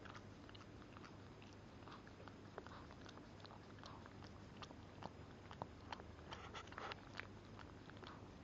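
Shih Tzu mother licking and nibbling her newborn puppy: faint, scattered wet mouth clicks and smacks, coming thicker from about five to seven seconds in.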